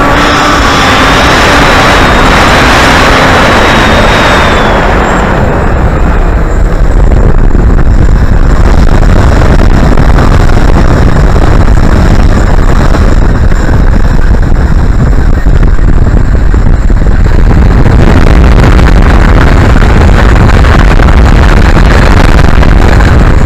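Loud wind buffeting on the onboard camera microphone of a multi-propeller RC plane in fast flight, mixed with the plane's motors and propellers. A faint high whine in the first few seconds fades out about four seconds in, leaving mostly low rumbling wind noise.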